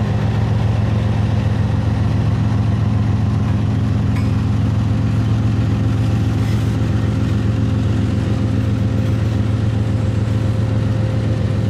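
Diesel freight locomotive engine running steadily at an even speed, a low drone that holds without change.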